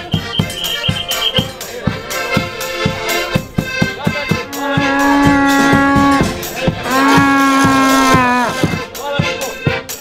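Two long blasts on an animal horn, each held about a second and a half, over a steady beat on a big bass drum.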